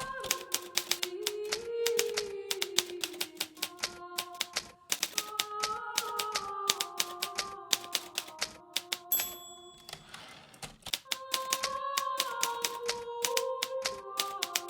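Hermes Baby manual typewriter typing in quick, uneven runs of key strikes. About two-thirds of the way in the keys stop; a short bell ding is followed by a brief rushing slide, typical of the margin bell and a carriage return, and then typing resumes. Soft background music plays underneath.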